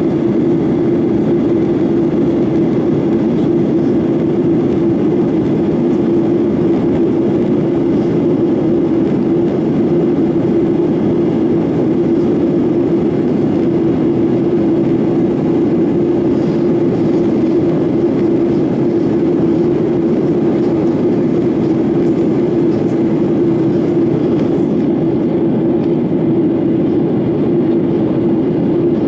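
Cabin noise of a Boeing 737-900ER in flight: its CFM56-7B turbofans and the airflow make a steady, loud rushing drone with a strong low hum. The higher hiss thins out a little near the end.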